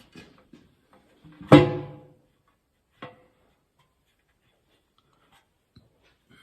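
A sharp metal clank with a brief ring, about a second and a half in, then a smaller tap near three seconds: metal parts knocking while the pan is fitted to a Turbo 350 automatic transmission.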